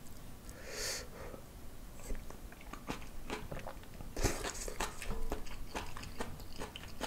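A person eating spicy Shin Ramyun noodles and broth from a spoon: two loud slurps, about a second in and a little past four seconds, with chewing and small wet mouth clicks between them.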